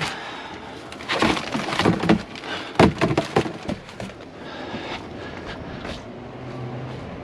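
Pieces of scrap metal clattering and knocking together as they are handled and dropped into a bin, a run of sharp knocks over the first few seconds, then quieter.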